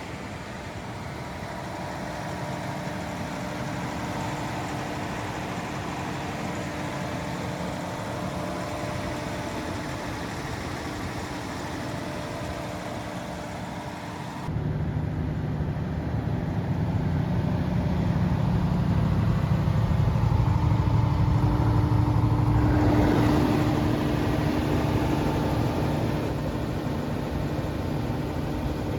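FG Wilson 715kVA diesel generator set running steadily on test, a continuous engine note. About halfway through it jumps abruptly louder and deeper.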